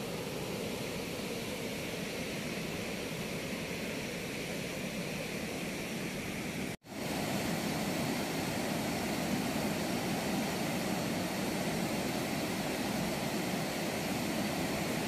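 Steady rush of turbulent water pouring through the open gates of a river weir, cutting out for an instant about seven seconds in.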